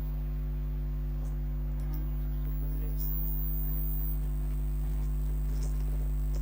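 A steady low electrical hum, with faint rustling, scraping and small clicks of cardboard and plastic packaging as a boxed inkjet printer is worked out of its carton.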